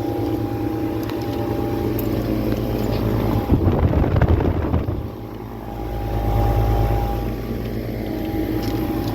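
Outdoor HVAC condensing units running: a steady hum from the scroll compressors and condenser fans. About three and a half seconds in, wind noise on the microphone buffets for over a second, and a deeper low rumble swells around six seconds in.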